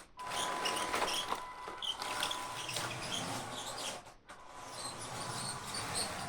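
Small 3D-printed RC half-track model driving: a steady thin electric-motor whine with many short high squeaks and chirps from the plastic tracks and gears. The sound drops out briefly about four seconds in.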